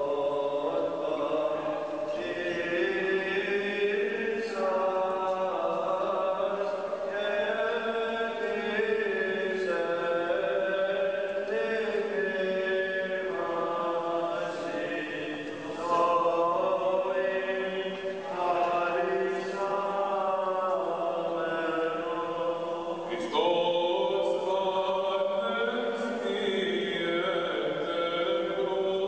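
Greek Orthodox Byzantine chant: voices singing a slow chanted melody in long, gliding notes, growing louder with new phrases about 16 and 23 seconds in.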